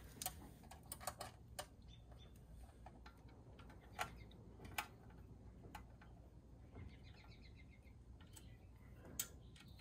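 Faint, irregular metallic clicks and ticks as an Allen key works the skeg guard's mounting screws into the outboard's lower unit.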